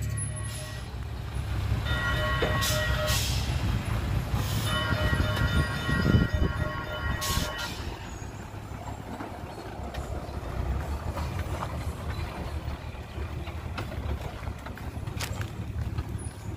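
Loaded dump truck's engine running as it pulls away over a dirt track, growing fainter after about eight seconds. Two long horn blasts sound over it, a short one about two seconds in and a longer one from about five to eight seconds.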